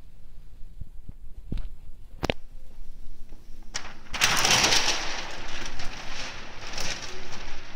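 A couple of sharp clicks, then, about halfway in, a few seconds of loud rustling as a large hanging sheet of brown kraft paper brushes against the phone's microphone.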